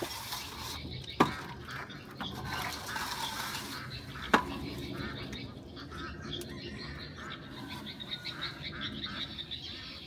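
Raspy scraping of a straightedge worked over fresh cement plaster on a wall. Two sharp knocks stand out, about one second and about four seconds in.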